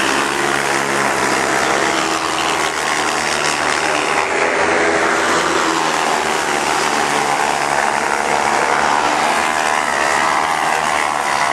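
Autocross sprint cars racing on a dirt track, several high-revving engines running at once, their pitch rising and falling as the cars accelerate and back off.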